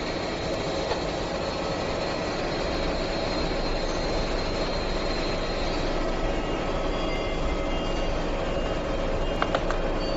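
Steady mechanical drone with faint whining tones running throughout, and a couple of light clicks near the end.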